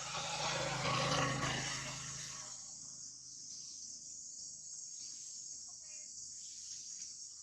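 Insects, crickets or cicadas, droning steadily in a high band. A louder rushing noise with a low hum fills the first two seconds and then fades out, and a short pitched call sounds about six seconds in.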